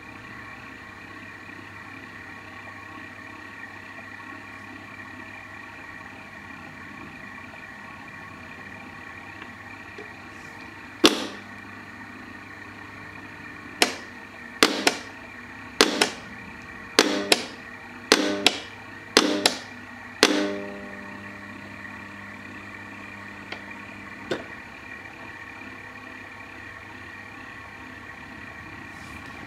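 The mechanism of a 1940s–50s American blacksmith automaton runs with a steady motorised hum and whir. Partway through, it gives about ten sharp metallic hammer strikes on the anvil over some nine seconds, each ringing briefly, followed later by one faint tap.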